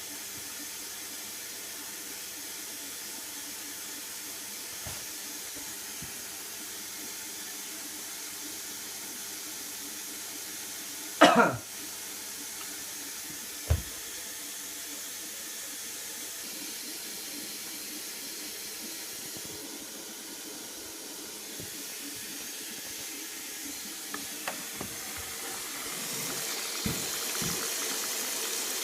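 Indesit 860B washing machine filling with water at the start of its prewash: a steady hiss of water running in, louder and brighter near the end. A single brief loud sound cuts across it about eleven seconds in.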